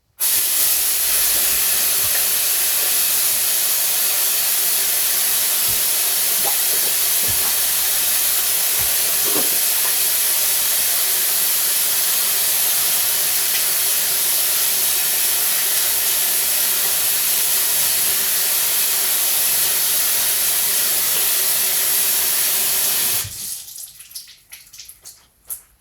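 Hands being washed under a running tap: steady water running into a sink, which stops abruptly as the tap is shut off near the end, leaving a few faint small drips and handling sounds.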